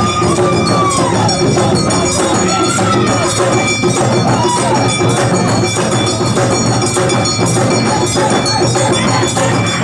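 Awa odori dance music: drums and clanging metal hand gongs keep a dense, driving beat, with a high melody line gliding over it.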